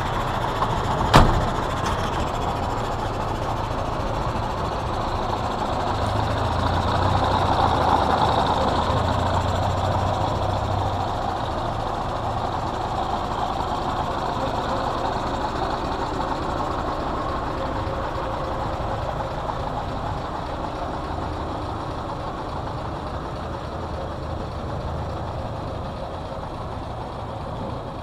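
Scania 142M's V8 diesel engine idling steadily, a little louder for a few seconds in the middle and fading slightly toward the end. A sharp knock sounds about a second in.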